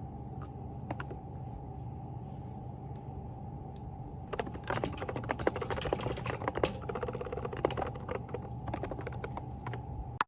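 Typing on a Groovestone GV10 mechanical keyboard with hand-lubed silent Coral switches: irregular soft key clicks, quickening into a fast run of keystrokes around the middle, over a steady background hum.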